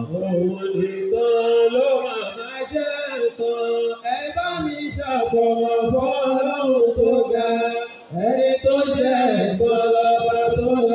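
A man's voice chanting melodically into a microphone, drawing out long held notes with short pauses for breath, one about two-thirds of the way through.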